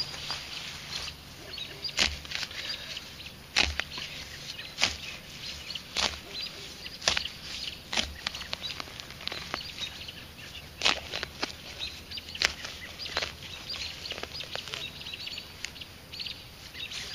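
A hand digger stabbing and cutting into grass turf and soil, irregular crunching strikes about every second or two as a plug is cut and levered up.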